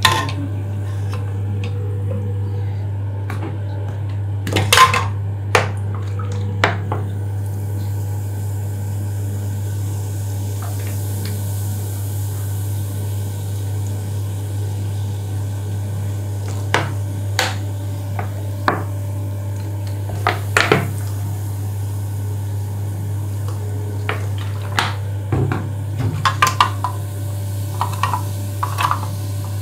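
Hard plastic parts of a Geberit concealed-cistern ball cock (fill valve) clicking and knocking against each other and the ceramic basin as they are handled, in scattered bunches of short clicks. Under them runs a steady low hum.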